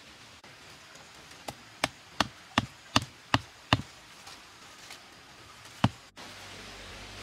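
Sharp wooden knocks: a quick run of about seven, roughly three a second, then one more a couple of seconds later, as wooden stakes are driven or knocked into place.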